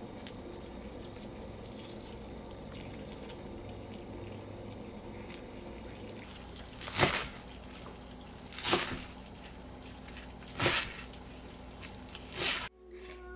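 Water boiling in a saucepan on the stove, a steady bubbling hiss. In the second half, four sharp knife chops on a wooden cutting board, roughly two seconds apart, the first the loudest.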